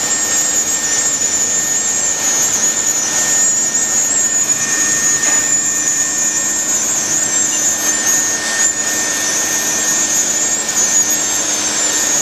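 Leister Bitumat automatic hot-air roofing welder running steadily while it welds a granule-surfaced bitumen membrane seam: its blower makes an even rushing hiss with a steady high whine.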